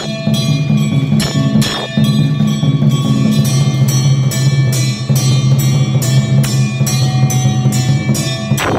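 Automatic temple drum-and-bell machine (Raja Mela Thalam) playing: an 18-inch drum beaten in a rapid, steady rhythm with brass bells ringing over it. It gets louder about two seconds in, and a swishing sweep passes near the end.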